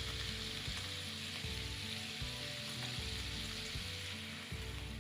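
Sauce sizzling in a hot pan just after water is poured in, stirred as it cooks; the sizzle dies down near the end. Background music with low repeating notes underneath.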